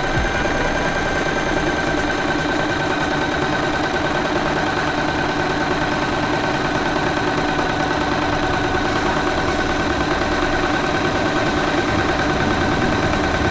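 Singer Simple 3232 portable electric sewing machine running steadily at speed, stitching a straight seam through fabric: an even motor whine with the needle mechanism's hum. It stops at the very end.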